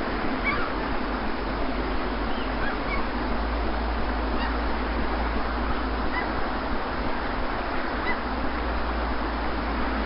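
Steady wash of sea surf with a low rumble underneath, and short bird calls breaking through it several times.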